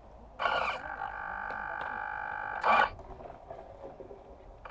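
A small electric motor on board the model yacht, most likely its sail-winch servo, runs with a steady whine for about a second and a half, with a harsher burst as it starts and a louder one as it stops.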